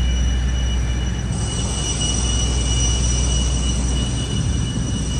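Boeing 747's APU and air-conditioning packs running on the ramp: a steady high whine in two thin tones over a constant low rumble.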